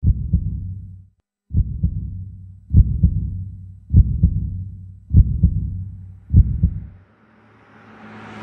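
Heartbeat sound effect: six low double thumps, lub-dub, about 1.2 s apart, over a low hum. Near the end a rising whoosh swells in.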